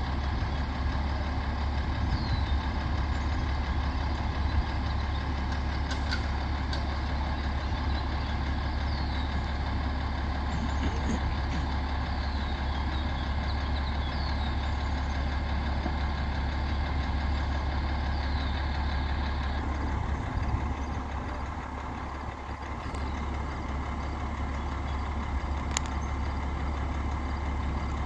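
Bucket truck's engine idling steadily, a constant low hum that sags briefly about three-quarters of the way through.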